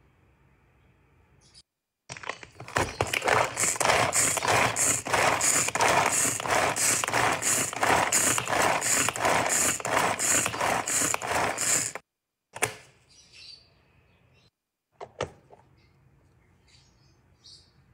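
Small food chopper with a glass bowl chopping red onion: a loud whirring that pulses about twice a second, starting about two seconds in and stopping suddenly about ten seconds later. A couple of sharp knocks follow.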